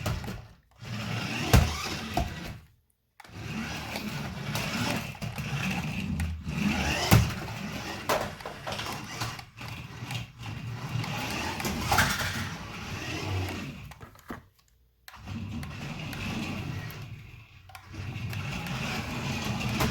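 Electric motors and gears of a 1:14 four-wheel-drive remote-control monster truck whirring in spells of a few seconds as it is driven, stopping briefly several times, with scattered knocks.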